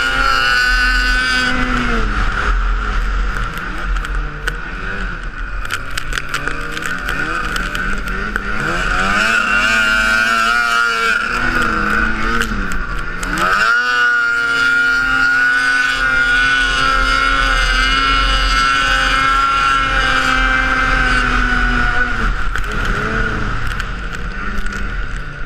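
Arctic Cat snowmobile engine running hard through deep powder, its revs rising and falling. About halfway through the revs sag, then climb sharply again, and they ease off near the end.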